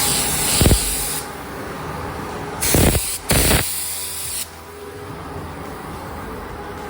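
Paint spray gun hissing in short passes as a light dust coat of pearl is sprayed over black paint, with three brief, louder blasts of air, one early and two close together about three seconds in.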